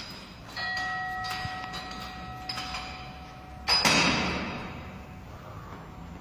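Metal gym equipment: a clear ringing metal tone lasting about three seconds, then a loud heavy thud nearly four seconds in that fades out over about a second.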